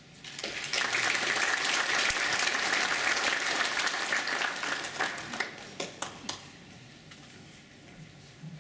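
Audience applauding. The applause builds about half a second in, holds for several seconds, then dies away with a few last separate claps.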